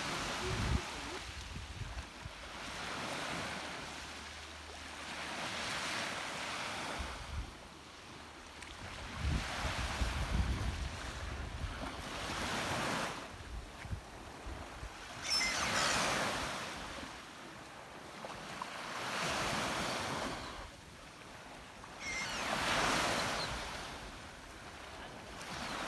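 Black Sea waves breaking and washing up the shore, a swell about every three seconds, with wind buffeting the microphone.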